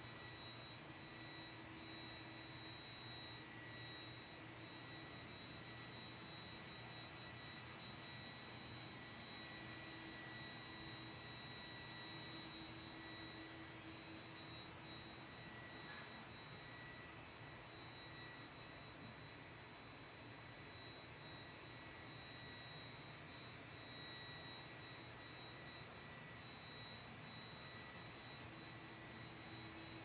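Roomba robot vacuum cleaning carpet: a steady, faint whir with a high, even whine.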